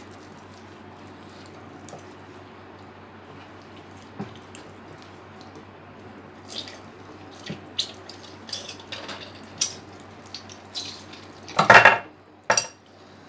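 Raw meat squelching and clicking as it is pressed by hand into the hopper of a hand-cranked metal grinder. The sounds come as scattered short wet snaps that grow busier after about six seconds, with a louder, longer squelch-and-scrape near the end. The meat is being squeezed rather than minced.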